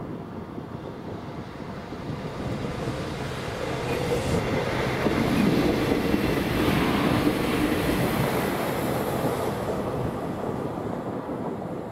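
A passenger train passing over the level crossing, its running noise growing louder, peaking midway and fading away.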